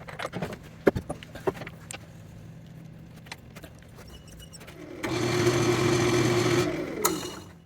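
Clicks and knocks over a faint low hum, then about five seconds in the lathe runs loud with a steady motor hum and hiss, and winds down near the end.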